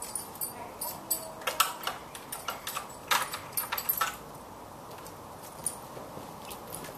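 A bunch of keys jangling, with sharp metal clicks and rattles as a key and latch are worked at a wooden gate's lock, for about four seconds. After that only a single faint click.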